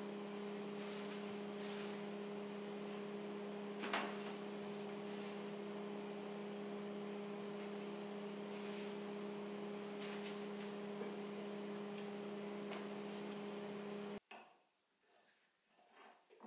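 Paper rustling and light wooden knocks as a roll of paper is spread on a wooden workbench and a thin wooden frame is set on it, with a sharper knock about four seconds in, all over a steady hum. The hum cuts off abruptly about fourteen seconds in, leaving only faint handling sounds.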